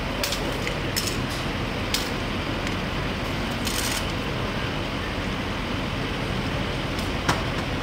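Steady rumble of street traffic and idling vehicles, broken by a few sharp clicks, the loudest near the end, and a brief hiss about four seconds in.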